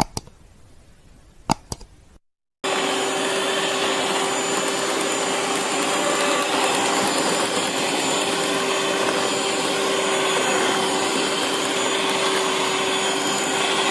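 Electric hand mixer running steadily with a constant motor hum, its beaters churning thick butter, sugar and egg batter in a stainless steel bowl. It comes in suddenly about two and a half seconds in, after near silence broken by a few sharp clicks.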